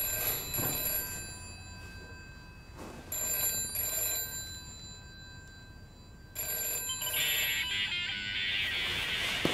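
Mobile phone ringtone: rings about every three seconds, then a busy melodic tune from about seven seconds in.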